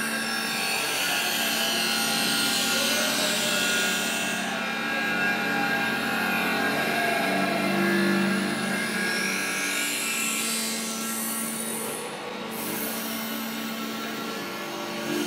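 Manipulator-mounted abrasive disc grinder grinding a rusty metal casting: a continuous harsh grinding over a steady hum, swelling and easing as the disc is worked along the metal.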